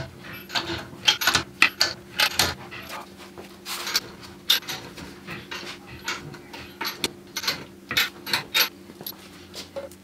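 Irregular clanks, scrapes and shuffles of a steel floor jack being rolled under the side of a car and set in place by its long handle, with footsteps on a concrete floor.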